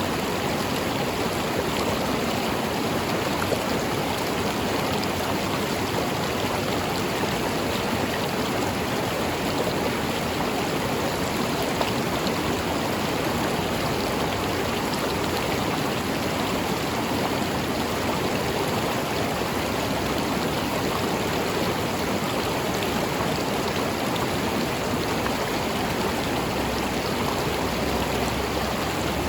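A river or stream flowing steadily over rocks, a continuous rushing and burbling of water.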